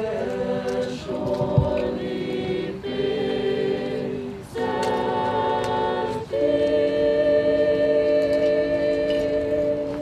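Youth choir singing a cappella in short sustained phrases, closing on a long held chord that cuts off near the end.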